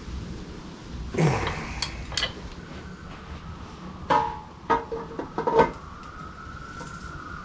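Metal tools and parts clinking and knocking as they are handled: a few sharp knocks about a second in, then a cluster of ringing taps around four to six seconds in. A faint high tone runs under the later taps.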